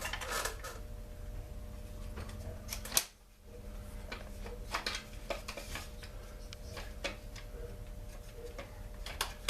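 Scattered light clicks and taps of hand tools and plastic parts being handled while a chainsaw is taken apart, with one sharp click about three seconds in, over a faint steady hum.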